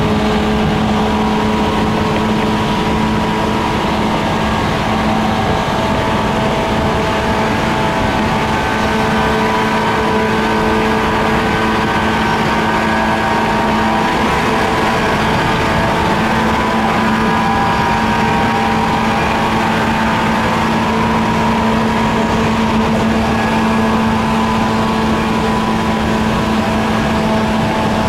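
JR 185 series electric train heard from inside its motor car, running at a steady speed: the MT54 DC traction motors and gearing give a growling hum made of several held tones over continuous wheel-on-rail noise.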